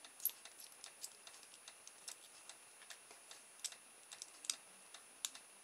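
Precision screwdriver undoing the tiny screws of a cheap plastic micro servo's case: faint, irregular light clicks and ticks, a few a second, as the screwdriver turns the screws.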